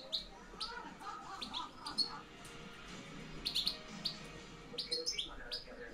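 European goldfinch calling: short, sharp call notes in scattered bursts, with softer twittering beneath them. This is the call a wild-type ('campero') decoy goldfinch gives.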